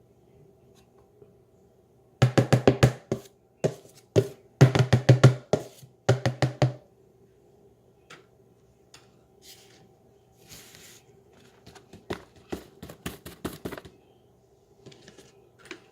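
Runs of rapid, sharp knocks, about eight to ten a second: a bowl being tapped to shake the last tapioca starch powder out. The loudest runs come a couple of seconds in and go on for about five seconds, with softer scattered taps near the end.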